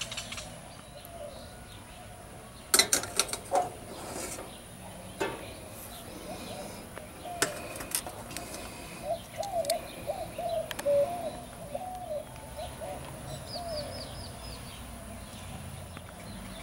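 Sharp metallic clinks from stainless steel camp cookware and utensils being handled, a cluster of them about three seconds in and a few more up to about eight seconds. A bird calls in a run of repeated wavering notes in the middle, with a short high chirp near the end.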